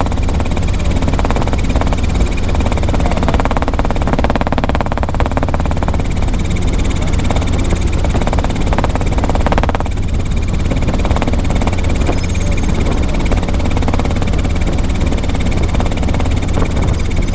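Robinson R22 helicopter in cruise flight heard from inside the cockpit: the piston engine and main rotor make a loud, steady, deep drone.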